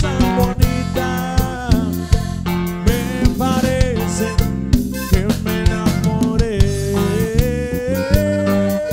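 Live band music with no lyrics sung: a melody over a steady beat from drum kit and hand percussion, with guitar and bass. A long held melodic note comes in about two-thirds of the way through.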